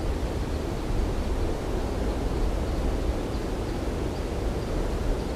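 Wind gusting over the microphone: a steady low rushing noise with no distinct events.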